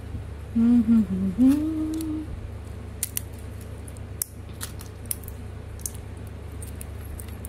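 A person hums briefly, a wavering wordless "hmm", then light sharp clicks and taps as fingers handle a small rectangular battery.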